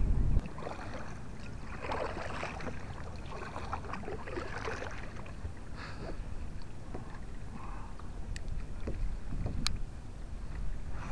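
Small waves lapping and splashing against a kayak's hull, with a few sharp clicks near the end. A short blast of wind rumble on the microphone cuts off about half a second in.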